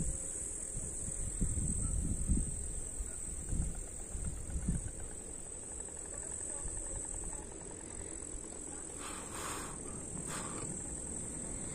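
Crickets chirring steadily in a high, continuous tone, with wind gusting on the microphone in the first few seconds. Near the end come two short bursts of hiss about a second apart.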